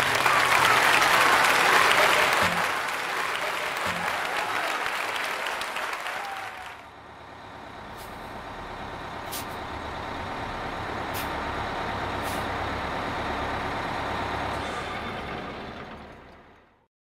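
Audience applauding for about the first seven seconds. The sound then cuts to a steady low rumble with a few faint clicks, which fades out near the end.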